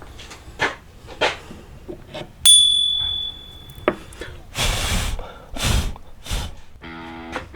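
Workshop handling noises: a few knocks and short scrapes, and a sharp metallic clink about two and a half seconds in that rings on briefly. Background music comes in near the end.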